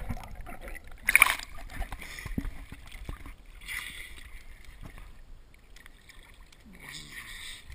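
Water sloshing and bubbling around a GoPro held just under and at the water's surface, with scattered small clicks and a louder splash about a second in.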